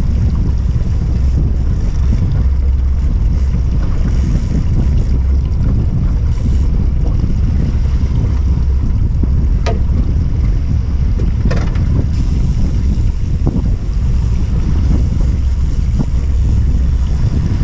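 Wind buffeting the microphone on an open boat at sea: a steady low rumble, with a few short sharp clicks about ten and twelve seconds in.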